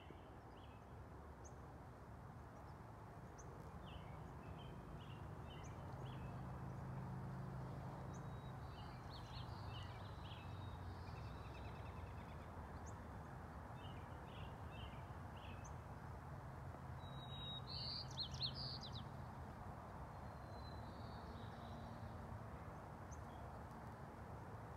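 Evening outdoor ambience: scattered short bird chirps over a steady low background hum, with a brief louder run of chirps about three-quarters of the way through.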